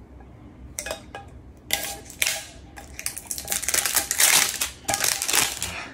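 A knife blade working at the metal tin packaging of Le Male Elixir to open it: a few sharp clicks about a second in, then a dense run of scraping and clicking of blade on metal, loudest about four seconds in.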